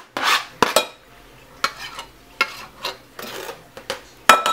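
Kitchen knife scraping minced garlic off a plastic cutting board into a glass bowl of mashed avocado: a string of short scrapes and taps, with a sharp ringing clink of the knife against the bowl near the end.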